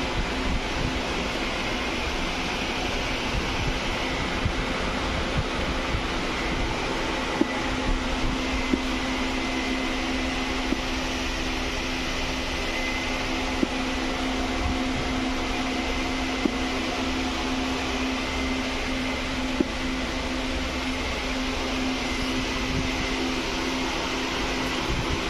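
Steady running noise inside a non-AC Indian Railways coach: an even rumble and hiss with a constant low hum, broken by short sharp knocks at irregular intervals.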